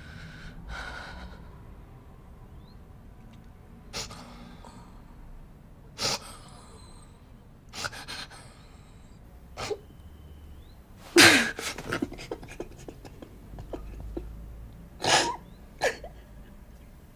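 A woman crying: a series of short, sharp gasping sobs and sniffs, irregularly spaced, the loudest about eleven seconds in.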